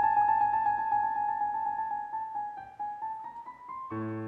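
Background piano music: a quick run of repeated high notes, about six a second, creeping slowly upward in pitch, then a held chord just before the end.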